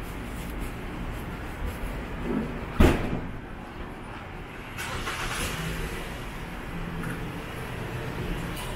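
City street traffic, a steady low rumble of passing cars, with one sharp bang about three seconds in and a rising hiss of a passing vehicle shortly after.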